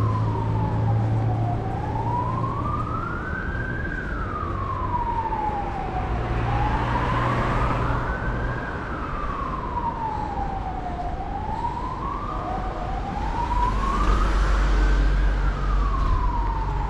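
An emergency vehicle's siren wailing, its pitch rising and falling slowly, about one cycle every four seconds, over the low rumble of street traffic.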